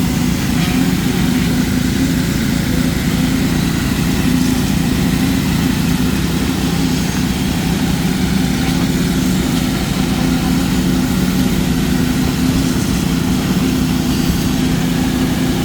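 Heavy construction machinery engine running steadily with a constant low drone, without revving.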